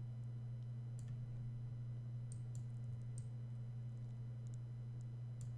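Steady low hum with a few faint, sharp computer mouse clicks, about four, scattered through it.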